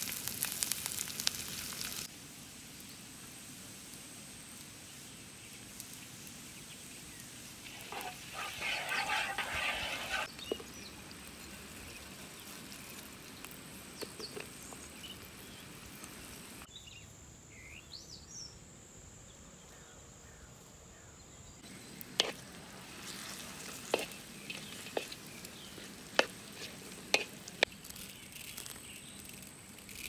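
Food sizzling and frying in a hot wok over a wood fire, with a wooden spoon stirring through it. About eight seconds in the sizzle surges louder for about two seconds, and later several sharp ticks stand out above the frying.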